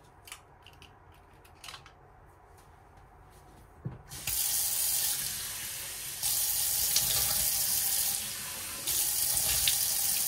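Water running from a single-lever mixer tap into a washbasin, its sound growing louder and softer a few times. Before it comes on there are a few light clicks and a knock.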